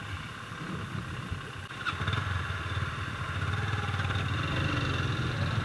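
Small motorcycle engines running at low revs, getting louder about two seconds in as the bikes pull away.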